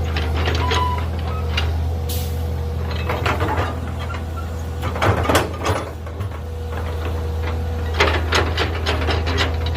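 Mini excavator's engine running steadily under a faint hydraulic whine, with several bouts of clattering knocks and scrapes from the bucket working in the ground.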